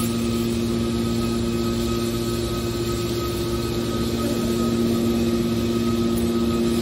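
Hydraulic iron scrap baler running, a steady hum from its motor-driven hydraulic pump: a few held tones over an even drone.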